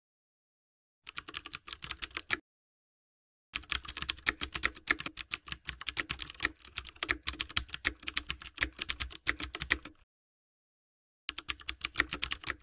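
Computer keyboard typing sound effect, rapid key clicks laid under text typing itself out on screen. It comes in three runs with dead silence between: a short run about a second in, a long run from about three and a half seconds to ten, and another starting near the end.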